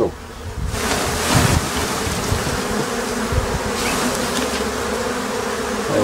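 A dense mass of honey bees buzzing loudly as they are shaken off a hive frame. The buzz swells about a second in and then holds steady, with a couple of dull thumps.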